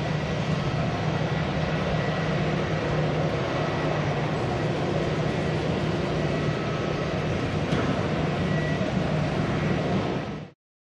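Airbus A320's CFM56-5B jet engines running at taxi idle: a steady rumble with a faint high whine. It cuts off abruptly near the end.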